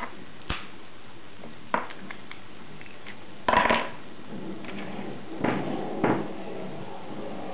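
Lock pick and tension wrench working in a Lockwood 5-pin padlock during single-pin picking: scattered sharp metal clicks and scrapes, with a louder rattling scrape about three and a half seconds in and two more near six seconds.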